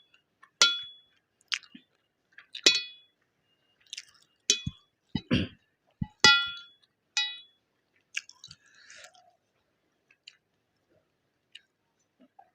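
Close-up eating: about five sharp metallic clinks that ring briefly on the plate, with chewing and mouth sounds in between, a louder patch about five seconds in and another near the eight-second mark.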